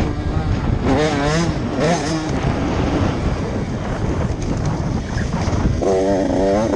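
Motocross bike engine heard from the rider's helmet, its pitch rising and falling as the throttle is opened and closed through a corner, settling into a steady pull near the end.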